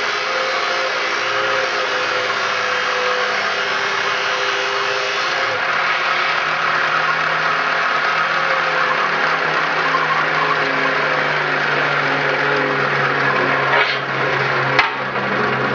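Grinder with a thin 0.063-gauge stone running steadily as it cuts the groove back into the welded rail of a chainsaw bar. The motor's tone drops slightly about five seconds in, and there are two sharp clicks near the end.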